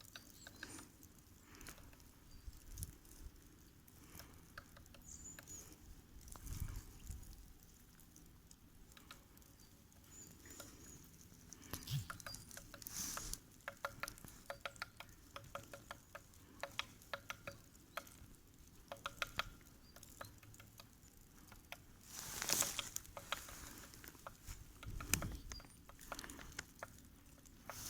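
Woodpecker tapping on a tree trunk: runs of quick, sharp knocks, repeated many times with short pauses, along with a few louder rustling bursts.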